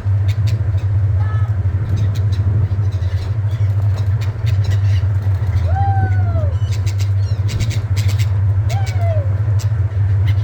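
Gulls calling: a few short, arched cries, the clearest about six seconds in and again near nine seconds, over a steady low drone.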